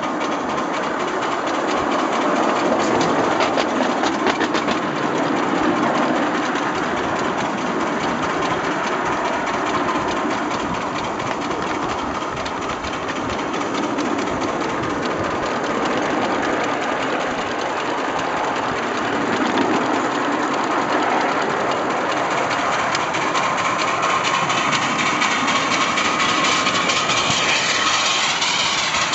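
7¼-inch gauge live steam locomotive running along the track, with a fast, even mechanical beat from its exhaust and running gear and wheels clicking over the rails.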